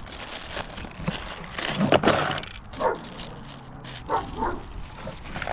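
A dog barking several short times, the loudest bark about two seconds in.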